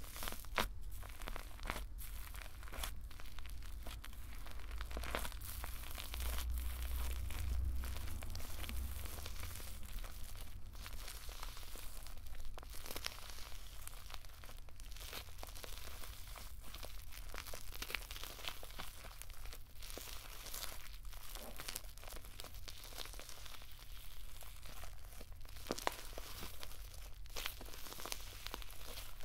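Hands kneading, squeezing and pulling apart fluffy cloud slime mixed with white foam: a continuous run of soft crackling, tearing and crunching as the slime stretches and rips.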